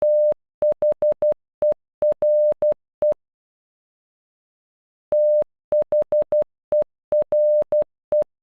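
Morse code for the word "there" (dash, four dots, dot, dot-dash-dot, dot) sounded as electronic beeps of one steady pitch. It is played twice, with a pause of about two seconds between.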